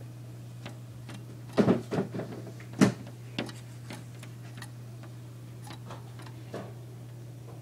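Female northern cardinal pecking at a glass pane with her beak: a run of irregular sharp taps, loudest and closest together about one and a half to three seconds in, then sparser.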